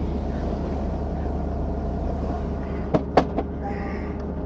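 Helicopter running on the ground with its rotor turning, heard from inside the cabin as a steady low hum and rush. A few sharp clicks about three seconds in, from a seat-belt buckle being handled and latched.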